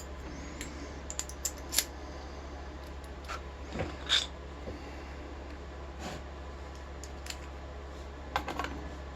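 Scattered small metal clicks and taps as a rim cylinder lock and its parts are handled, over a steady low hum.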